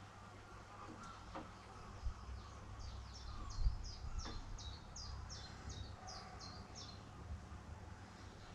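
A bird calling a quick run of about a dozen short, high, falling notes, roughly three a second, over a steady low rumble, with a single low thump midway.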